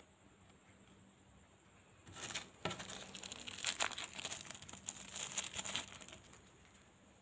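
A small red wrapper around a collectible card being opened and crumpled by hand, crinkling and crackling for about four seconds starting about two seconds in.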